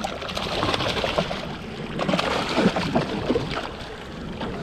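A hooked bonito thrashing at the water's surface, making irregular splashes as it is drawn up by the leader.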